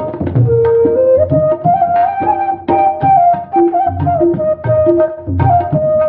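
Instrumental background music: a flute melody with small slides between held notes, over tabla drumming.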